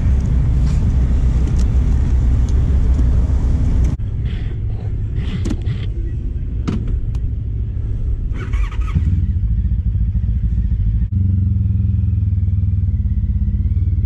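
Honda ST1300's V4 engine running at low speed, the sound broken by edits. In the middle come a few sharp clicks and knocks, and near the end the engine runs steadily again as the motorcycle moves off.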